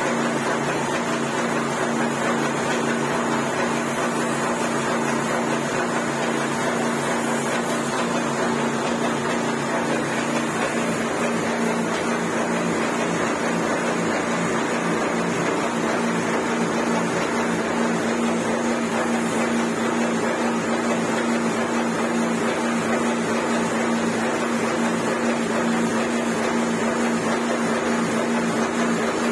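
Putty spray machine running steadily: a constant motor-pump hum under the hiss of wall putty spraying from the gun onto the wall.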